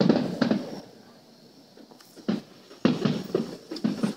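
Aerial fireworks shells bursting, a series of sharp bangs that ring on: two or three close together at the start, a pause, then a quick volley of bangs over the last two seconds.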